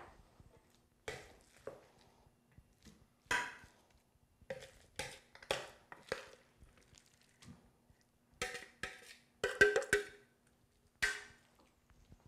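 A utensil knocking and scraping against a mixing bowl and baking dish as ground-chicken meatloaf mixture is scooped into the dish: about a dozen irregular clinks and scrapes, some with a brief ring, the loudest cluster around ten seconds in.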